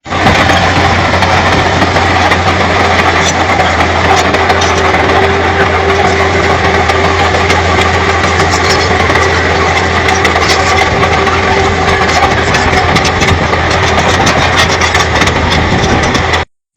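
Shantui bulldozer's diesel engine running steadily, with a faint whine that comes in about four seconds in and fades out near the end.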